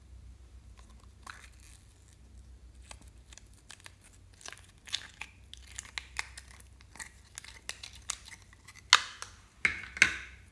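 Clear slime with green dots being pulled out of a small plastic container: a run of sticky crackles and clicks as it peels free, growing busier, with two loud snaps near the end.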